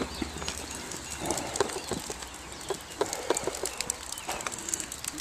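Footsteps on wet gravel and stones, a string of short, uneven crunches as someone walks.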